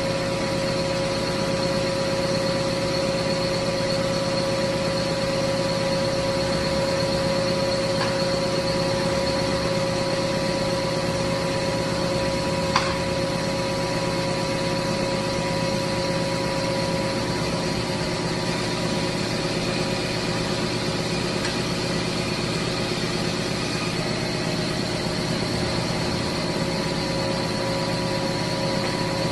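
Band knife cutting machine running steadily, its motor and moving blade giving an even whine with a few held tones. One sharp click about thirteen seconds in.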